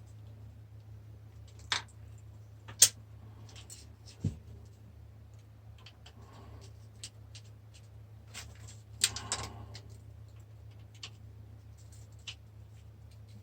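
Scattered metallic clinks and knocks of tools and rusty microwave parts being handled during dismantling, about half a dozen sharp hits with a cluster near the middle, over a steady low hum.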